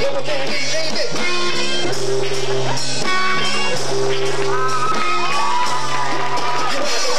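Live rock band playing, with a man singing into a microphone over held notes and sliding pitches.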